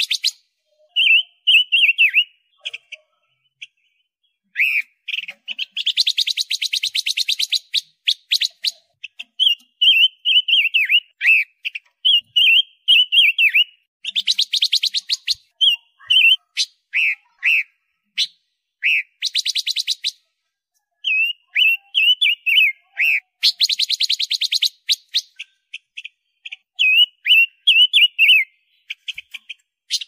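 Silver-eared mesia (robin panca warna) singing: short, high, warbled whistled phrases alternating with fast rattling trills, in bursts separated by brief pauses.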